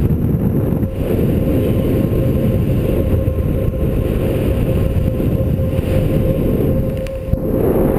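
Wind noise from the airflow of paraglider flight buffeting the camera microphone: a loud, steady rush with a thin steady tone under it, easing briefly near the end.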